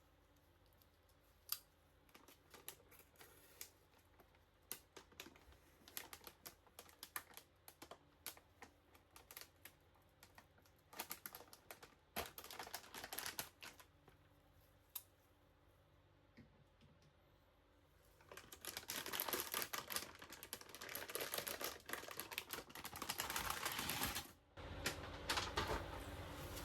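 Handling noise from unboxing a graphics card: scattered small clicks and taps of packaging. About two thirds of the way in, these give way to several seconds of dense, continuous rustling.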